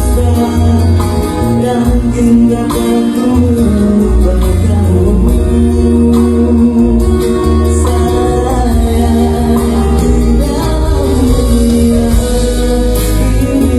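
Music: a Malay pop ballad playing loudly with heavy bass, guitar and singing.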